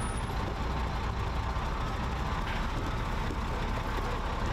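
Diesel engine of a wheel loader running steadily while its bucket lifts a load of broken concrete.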